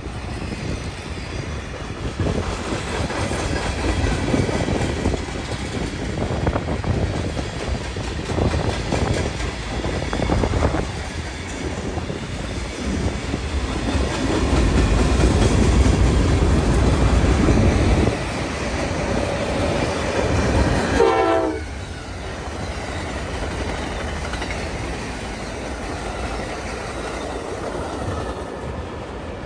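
Trains passing close by: rail cars rolling with wheel clatter and a heavy rumble. About 21 s in a train horn sounds briefly and drops in pitch as it goes past. Afterwards Amtrak passenger cars roll by, quieter and steadier.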